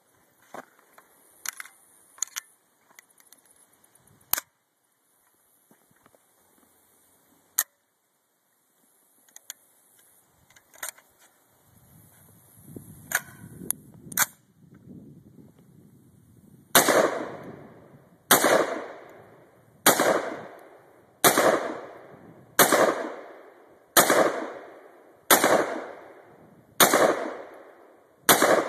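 Metallic clicks and clacks of an AR-15 rifle being handled, then, just past halfway, slow semi-automatic gunfire from the rifle: about nine shots, roughly one every second and a half, each with a long echoing tail.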